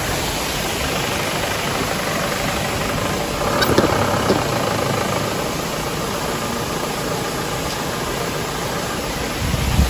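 Stream water running over rocks, with an off-road jeep's engine running in the background.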